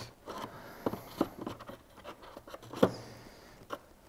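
Hands handling parts in a cardboard box with a moulded pulp insert: scattered light clicks, taps and rustles, with one sharper knock a little under three seconds in.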